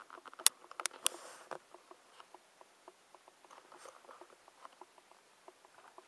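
Light ticking, roughly three to four ticks a second, from the small DC motor turning the larger DC motor used as a generator, with a few sharper clicks in the first second and a half.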